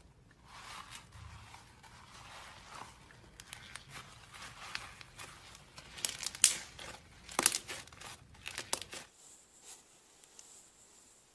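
Slime being handled and pulled apart: a run of sticky crackling, with several sharp snaps in the second half, then it stops.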